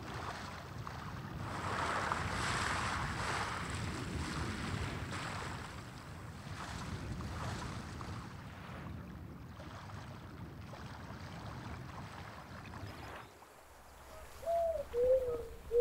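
Lake water lapping and washing at the shore with wind, coming and going in swells, the strongest about two seconds in. It drops away near the end, and a brief voiced murmur falls in pitch.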